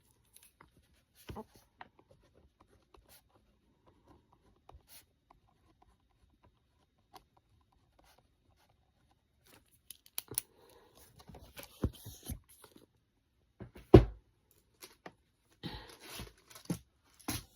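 Handling noises: quiet at first with a few faint clicks, then from about ten seconds in a run of rustling, tearing-like sounds and clicks, with one sharper knock about fourteen seconds in.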